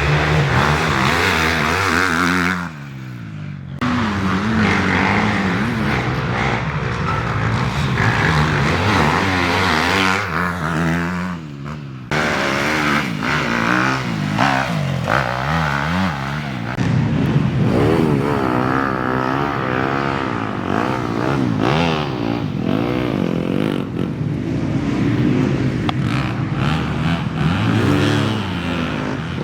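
Off-road race vehicle engines revving hard, several overlapping, their pitch rising and falling as they accelerate and ease off, with a brief lull about three seconds in.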